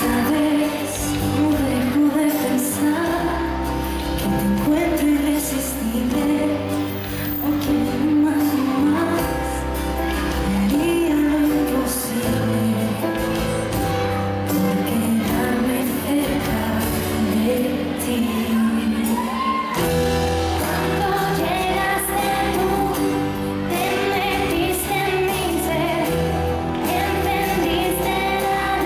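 Live acoustic pop song: women singing into microphones over an acoustic guitar, amplified through the hall's sound system.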